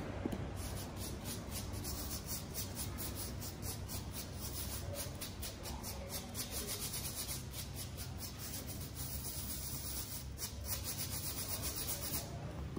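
Fingertips rubbing coloured sand onto the sticky sheet of a sand-painting card, a dry rubbing sound in quick repeated strokes that stops shortly before the end.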